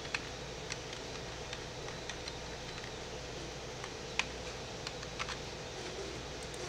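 Scattered single clicks of a computer keyboard and mouse as cells are selected and a formula is typed in, over a steady background hum.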